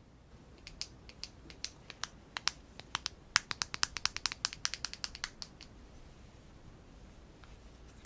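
Rapid sharp clicks and taps from makeup items being handled close to the microphone, sparse at first, then a quick dense run of a couple of seconds, stopping about two-thirds of the way through.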